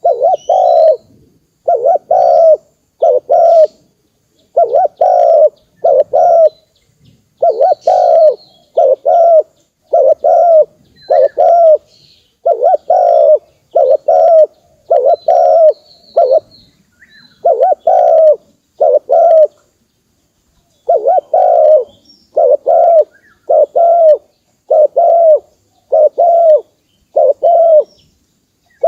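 Spotted dove cooing over and over, a steady run of low coo phrases with a short pause about two-thirds of the way through. This is the dove's territorial calling, the kind used as a lure to draw in wild doves. Faint chirps of smaller birds sound above it.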